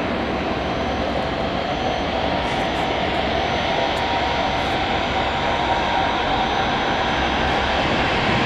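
Steady jet noise from the twin GE90-115B engines of a Boeing 777-300ER landing, an even, loud rush with a faint whine.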